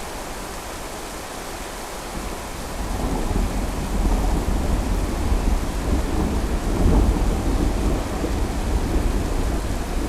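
Steady rain with a long rolling rumble of thunder that builds about three seconds in and keeps rolling to the end.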